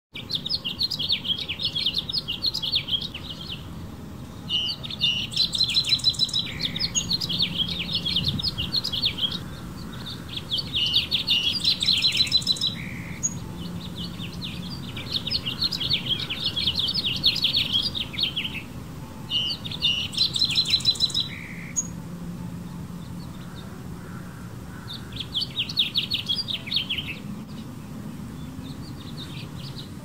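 Male house finch singing to attract females: a series of about seven rapid, bright warbling phrases, each two to four seconds long, with short pauses between them.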